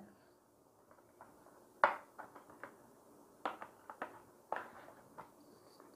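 Light, irregular clicks and knocks of hands handling a smartphone's cardboard retail box and its inner tray, the sharpest about two seconds in.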